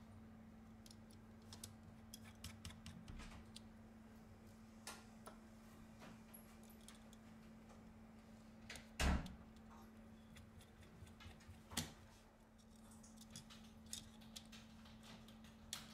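Faint clicks and ticks of a precision screwdriver driving small screws into a Samsung Galaxy Tab S2's motherboard and metal frame, with a louder knock about nine seconds in and a sharp tap near twelve seconds. A faint steady hum lies underneath.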